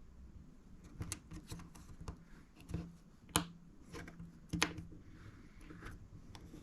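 Scattered small clicks and taps of fingers and a tool working on an opened iPhone 5, pressing its ribbon-cable connectors into place, with two sharper clicks near the middle.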